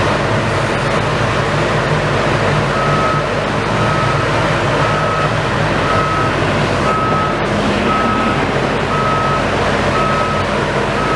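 A heavy vehicle's reversing alarm beeping once a second over a running engine and street noise. The beeping starts about three seconds in.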